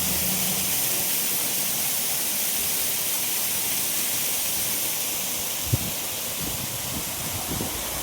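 Steady rushing noise of a monsoon waterfall. A low hum fades out in the first second, and there is one sharp knock about three quarters of the way in.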